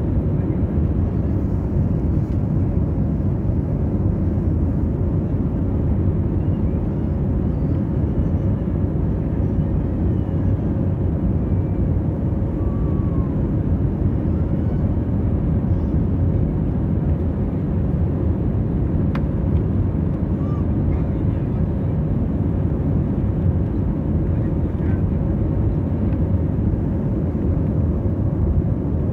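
Airbus A320 passenger cabin in flight: a steady low rumble of engines and airflow, with a faint steady hum above it.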